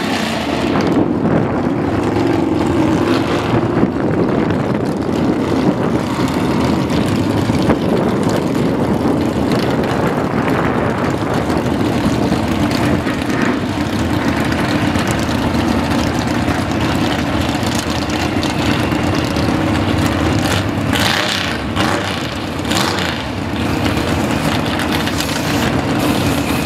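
Drag-racing engines idling loudly at the starting line, a steady heavy engine sound from the red Ranchero-style drag pickup and the car in the next lane as they wait to stage.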